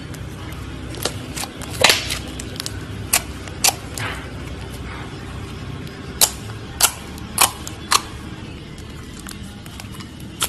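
Clear slime being folded and pressed by hand, giving sharp pops and clicks about nine times, loudest about two seconds in, with four evenly spaced pops near the end.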